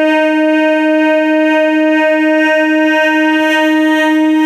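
MEMU electric local train's horn sounding one long, steady blast at a single pitch.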